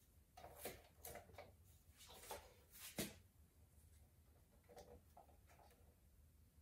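Faint, short scraping strokes of a putty knife on the wall around an electrical box, with one sharper tap about three seconds in and a few weaker strokes near five seconds.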